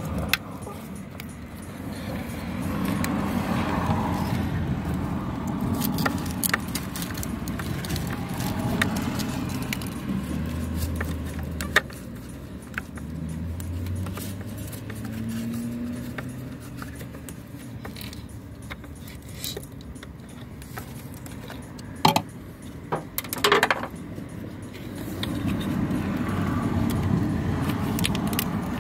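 Small clicks and taps of a screwdriver turning the Torx screw that holds a MAP sensor, with plastic and metal handling noise, over a low rumble in the background. About three-quarters of the way through come a few louder knocks and a short falling squeak.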